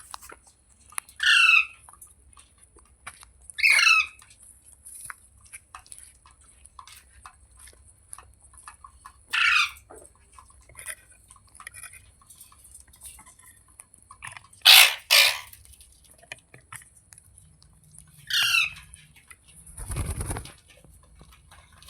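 Green parrot giving a series of harsh screeching calls a few seconds apart, including a quick double call midway. Near the end there is a short rustling burst.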